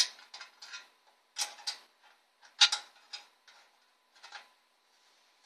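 Irregular clicks and light knocks of plastic and metal as a hard drive is fitted into a PC case's tool-less drive bay, its locking pins snapping into place on both sides. The loudest click comes about two and a half seconds in.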